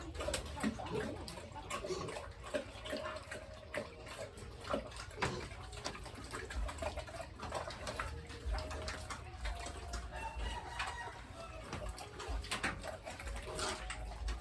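Chickens clucking and calling, with several longer drawn-out calls, over scattered knocks and clatter and a low rumble.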